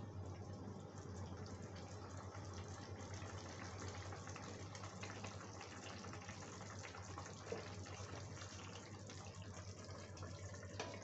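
Okra gravy simmering in a steel kadai, a steady crackling bubble of many small pops over a low hum. Near the end a steel plate is set on the pan as a lid with a light clink.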